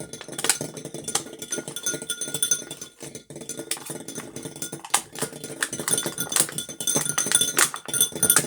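A kitchen utensil beating ingredients in a mixing bowl, clinking against the bowl in rapid, irregular strokes that leave a faint ringing tone.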